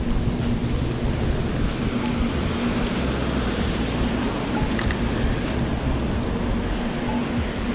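Steady rain and wet city street noise, an even hiss, with a faint low hum that comes and goes.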